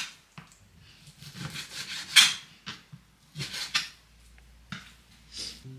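Kitchen cooking sounds: pots, utensils and food being handled, a scrape or knock every second or so, the loudest about two seconds in.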